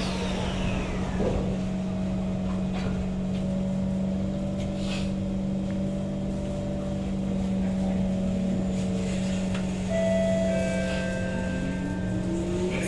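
Interior of a Kawasaki C151 metro train carriage: a steady electrical hum with thin steady tones and occasional faint clicks. Near the end a whine rises in pitch, as the traction motors pick up and the train starts to accelerate.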